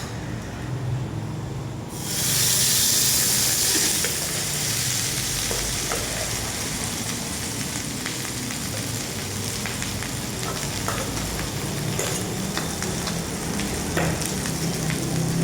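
Food hitting a hot oiled pan about two seconds in, bursting into a loud sizzle that settles into steady frying. Scattered sharp clicks of a utensil stirring in the pan run through it.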